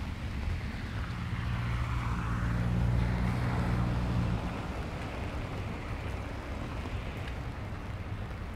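A vehicle passing on a wet road: engine hum and tyre hiss swell for about three seconds, then fade. Steady rain and wind noise continue underneath.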